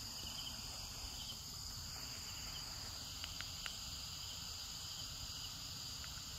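Steady high-pitched insect chorus, crickets shrilling, with a few faint clicks near the middle.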